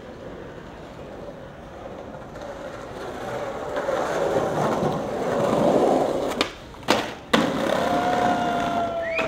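Skateboard rolling toward the microphone, the wheel noise growing louder, then sharp wooden clacks of a trick (tail pop and landings) about two-thirds of the way in. It rolls on afterwards with a faint falling whine near the end.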